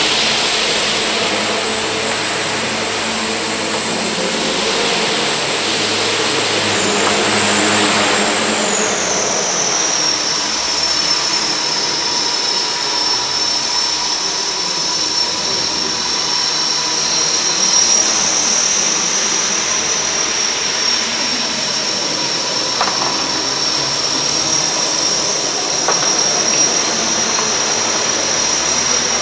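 Radio-controlled model helicopter's motor and rotor whining steadily in flight; the high whine drops in pitch about nine seconds in and then holds at the lower pitch.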